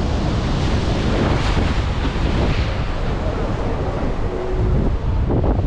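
Wind buffeting the microphone over surf washing in and out among the concrete tetrapods of a breakwater, a steady, rumbling noise.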